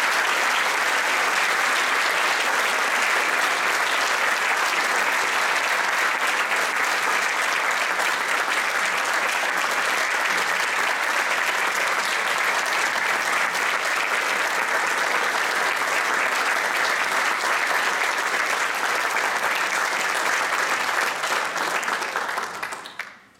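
Loud, sustained applause from a concert audience and the seated band, dying away near the end.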